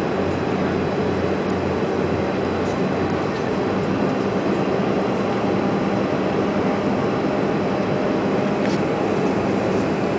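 Steady cabin noise inside a Bombardier CRJ regional jet in flight: the rear-mounted turbofan engines and rushing air, with a constant low hum.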